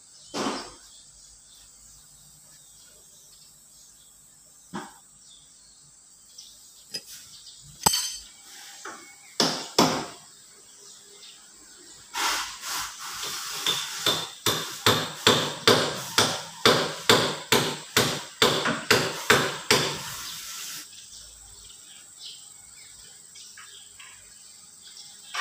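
Hammer striking metal during an engine overhaul. A few scattered knocks come first; about halfway through, a steady run of some twenty blows starts, about two to three a second, and stops a few seconds before the end.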